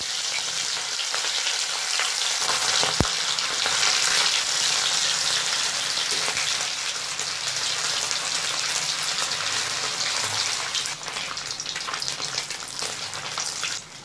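Hilsa fish steaks shallow-frying in mustard oil in a wok, a steady crackling sizzle, with one sharp click about three seconds in. The sizzle eases a little near the end.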